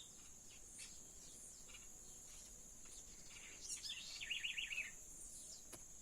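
Several small birds chirping and singing in a tree, in short scattered calls with a quick run of about five rapid notes near the middle, over a steady high insect hiss.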